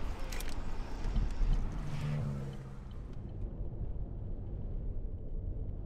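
Car driving, heard from inside the cabin: a low steady rumble of engine and road noise, with a brief louder engine hum about two seconds in.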